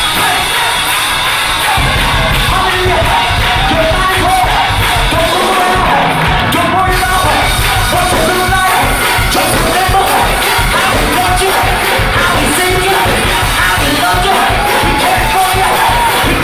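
Gospel choir singing with a full band; the drums and bass come in strongly about two seconds in.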